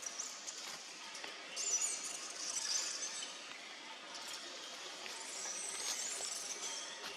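Baby macaque giving thin, high-pitched squeals in a few bouts, with several faint clicks in between.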